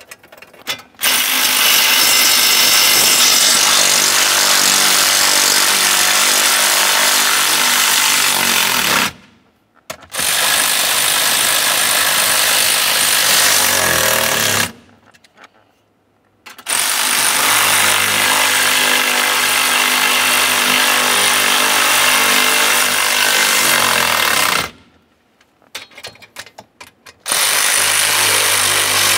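Power ratchet running the mounting bolts of a steel protective plate under the steering column, in four spells of several seconds with short pauses between them; the tool's pitch drops at the end of some spells.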